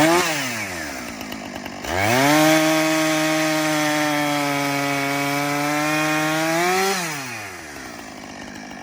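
Two-stroke chainsaw revved briefly. About two seconds in it climbs to full throttle, holds there steadily for about five seconds, then falls back toward idle.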